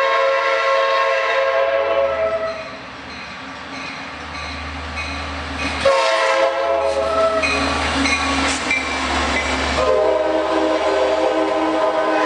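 Diesel passenger locomotive sounding its multi-chime air horn in three long chords as it approaches and passes, the last one a little lower in pitch. Between the blasts the engine's low rumble and wheel noise rise as the locomotive goes by, and the cars follow with rail clatter.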